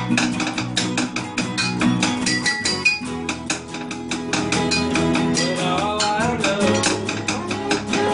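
Acoustic guitars strumming a fast, steady rhythm in an acoustic rock song. A wavering melody line comes in over them about halfway through.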